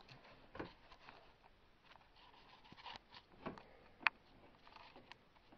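Quiet room tone broken by a handful of faint, short clicks and light knocks, the sharpest about four seconds in.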